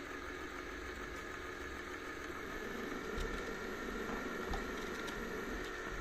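Robot vacuum cleaner running: a steady whir of its suction motor and brushes, with a few light clicks and soft low knocks in the second half.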